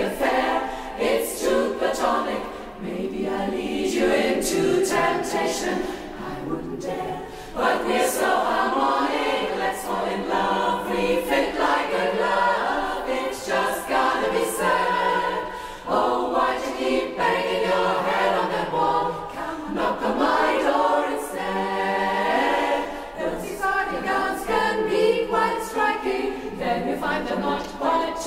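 Women's barbershop chorus singing a cappella, without instruments, in close four-part harmony.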